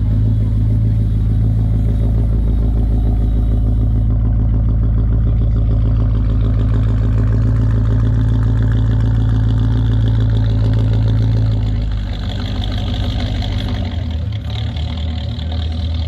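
1977 Chrysler New Yorker's 7.2-litre V8 running at a steady idle with a deep exhaust note; about twelve seconds in the note changes and drops slightly as the car pulls away.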